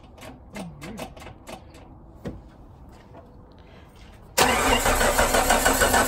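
A 1998 Jeep Wrangler TJ's engine is cranked over by the starter, cutting in suddenly about four seconds in and turning over with an even, pulsing rhythm without catching. This is the car's crank-no-start fault: there is no injector pulse and no coil signal.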